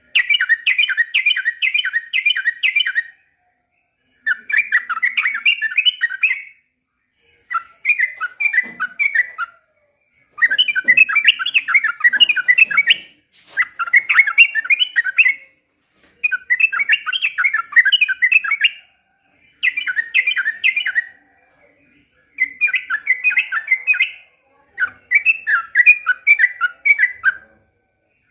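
Yellow-vented bulbul (trucukan) singing. It repeats loud, bubbly phrases of rapid notes, each a couple of seconds long, with short pauses between them.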